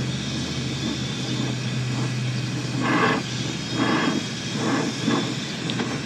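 Brazing torch flame hissing steadily as it heats the copper suction-line joint on a scroll compressor to unsweat the line, with a low hum for the first few seconds.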